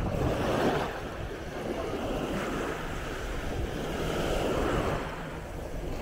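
Small waves washing onto a sandy shore, the surf swelling and easing as each one breaks, with wind buffeting the microphone.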